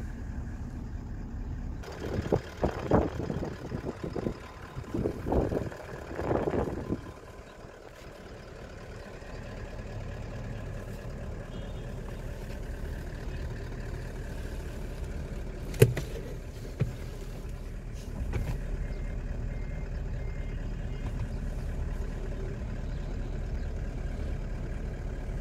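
Toyota Land Cruiser 70-series pickup's engine idling, a steady low hum heard from inside the cab. Irregular louder noises come in the first several seconds, and two sharp clicks about sixteen seconds in, the first the loudest sound.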